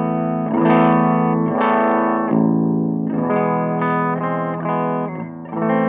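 Electric guitar played through a Quilter Mini 101 amp and a 1x12 closed-back cabinet with a clean tone, no fuzz or boost engaged. Several chords are strummed and left to ring.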